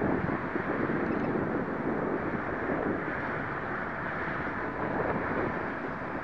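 Wind buffeting the microphone in a steady, fluctuating rumble, with the faint whine of a small electric RC plane motor coming through at times.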